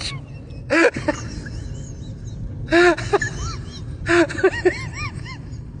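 Exaggerated snoring-like noises: short noisy snorts every second or two, each with a whistling tone that rises and falls, over a steady low rumble.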